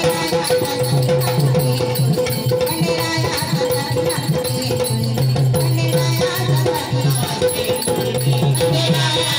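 Marathi devotional folk music of a jagran: a drum beating a steady rhythm under rattling percussion, with a held note throughout.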